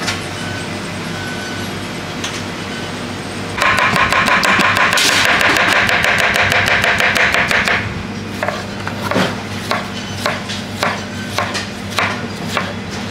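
Kitchen knife chopping fast on a plastic cutting board, several quick taps a second, under a loud machine whir that starts suddenly about a quarter of the way in and stops just past halfway. After that come slower, separate knife strokes slicing tomatoes, over a steady low hum.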